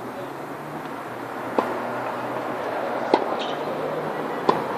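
Tennis ball struck with rackets in a hitting session: three sharp strikes about a second and a half apart, over a low steady hum.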